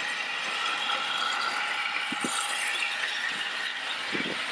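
Steam locomotive No. 461 and its carriages rolling slowly into a station, a steady mechanical running noise with a faint squeal held underneath. A few short low knocks come about two seconds in and again near the end.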